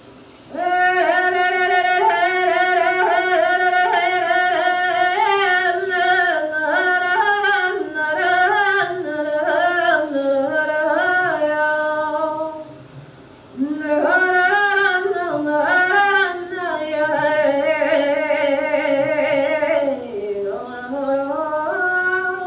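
Background music: a single unaccompanied voice singing a wavering, ornamented melody in two long phrases, with a brief pause about halfway.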